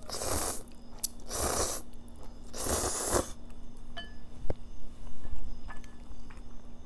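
Instant ramen noodles slurped up in three long pulls, one after another, then a few light clicks and clinks.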